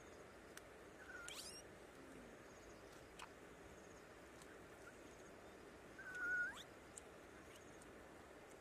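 Two short high-pitched animal calls over faint background hiss: a brief one about a second in and a louder, held one about six seconds in that rises at the end.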